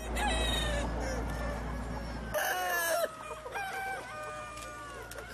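A crowd of chickens clucking and calling over one another, with overlapping short and drawn-out calls. A low rumble sits under the first two seconds and stops abruptly.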